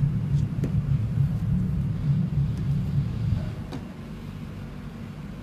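Low, fluttering background rumble that drops away about three seconds in, with a couple of faint clicks.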